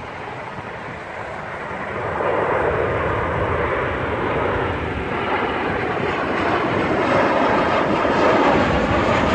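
Engines of a Southwest Airlines Boeing 737 jetliner on final approach with its landing gear down, passing close overhead. A steady jet roar grows louder about two seconds in and keeps building toward the end.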